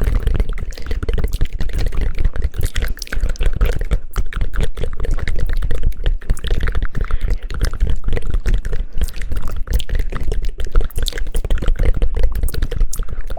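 Close-miked ASMR trigger sounds: a dense, fast, unbroken patter of clicks and taps with a heavy low thump, somewhat like pouring or rain.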